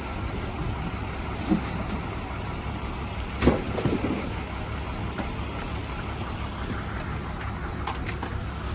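Steady low rumble of an engine running, with a sharp knock about three and a half seconds in.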